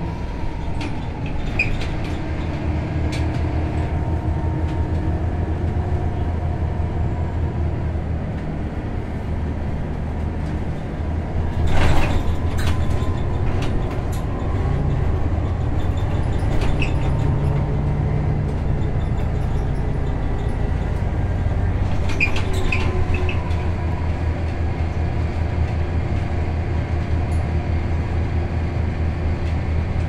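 Scania L94UA city bus driving, heard from inside the passenger cabin: a steady low diesel engine drone with scattered rattles and clicks from the bodywork, the loudest knock about twelve seconds in.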